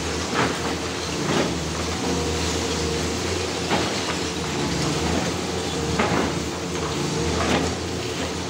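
Hyundai long-reach demolition excavator's diesel engine running steadily as its arm tears into the building, with about five irregular crashes of breaking concrete and falling debris.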